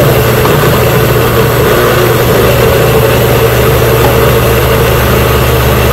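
Electric countertop blender running with a steady hum, puréeing sofrito vegetables (peppers, onions, cilantro, garlic) into a thick sauce. The owner says the blender's motor is dying and smells of burning.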